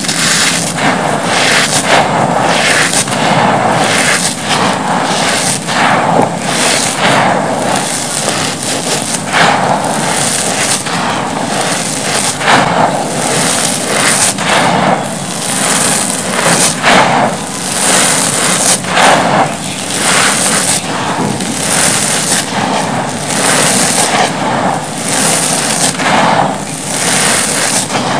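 Hands scooping, squeezing and crumbling dry, gritty cement dust, a loud gritty crunching and hiss of grit and powder pouring through the fingers. It swells in repeated surges, roughly one a second, as each handful is squeezed and dropped.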